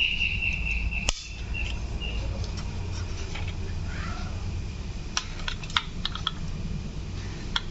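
Light clicks and taps of a toy truck being handled, with one sharp click about a second in and a cluster of small clicks near the end, over a low steady hum. A high steady tone dies away about a second in.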